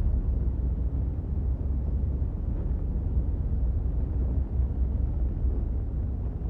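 Wind blowing steadily: a continuous deep rumbling noise with little high end and no separate gusts.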